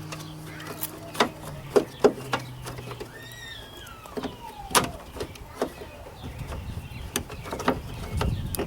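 Scattered sharp clicks and knocks of a door latch and its release-cable ends being handled and fitted inside a truck door. A falling whistle-like tone sounds about three seconds in.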